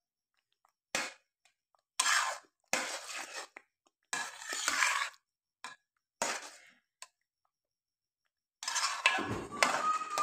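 A slotted metal spoon scrapes and stirs a thick, thickening milk-and-sugar mixture in a steel pot. It comes in several separate strokes with pauses between, the longest near the end. The mixture is still sticking to the bottom and sides of the pan, so it is not cooked down yet.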